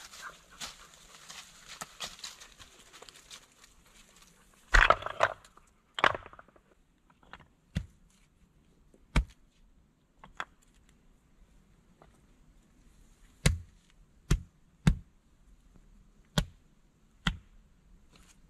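Flat stones clacking against each other as they are picked from a pile and set down: a dozen sharp knocks roughly a second apart, the first and loudest with a short rattle. Before the knocks begin there is a soft rustling in dry fallen leaves.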